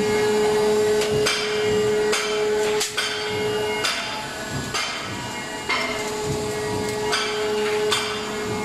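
Stainless steel embossing machine running, its rollers pressing a pattern into thin 0.15 mm stainless sheet. A steady hum with a held whine that drops out for a couple of seconds in the middle, and irregular sharp clicks or knocks about once a second.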